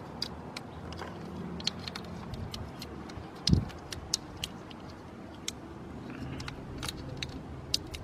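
Scattered light clicks and crackles of corrugated plastic wire loom being handled as wires are worked into it, with one dull thump about three and a half seconds in.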